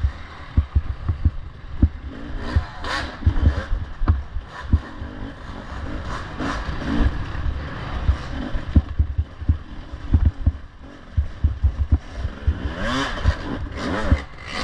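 Off-road dirt bike engine revving up and down as it is ridden, with rising pitch sweeps about thirteen seconds in. Frequent heavy low thumps run through it.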